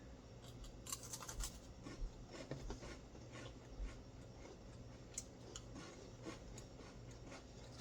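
Faint handling noise: scattered small clicks and scratches, as of snack packaging and small items being moved about on a table, over a low room hum.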